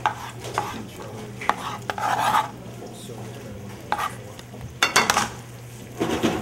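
Kitchen prep sounds: a knife and chopped tomatoes being handled on a plastic cutting board, scattered light clicks and knocks with two short scrapes, over a low steady hum.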